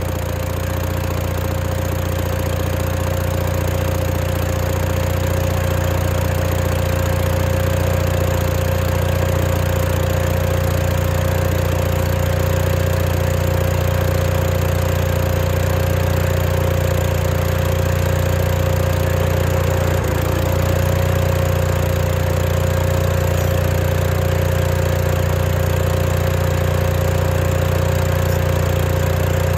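Case 1816C skid steer's engine running steadily at idle, freshly brought back to life after sitting for over ten years, with one brief dip about twenty seconds in.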